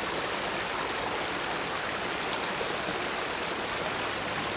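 Steady rush of a fast-flowing burn (small stream) over rocks.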